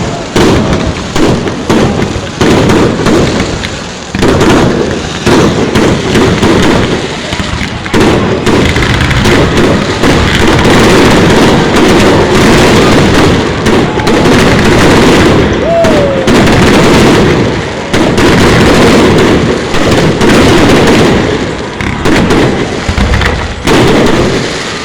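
Aerial fireworks going off in a rapid run of booms and crackles, the bangs overlapping into a near-continuous loud barrage through the middle stretch before thinning out near the end.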